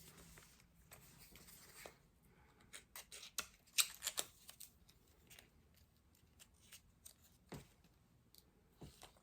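Faint handling of small cardboard lipstick boxes: scattered light clicks and rustles, busiest about three to four seconds in, with a few more taps near the end.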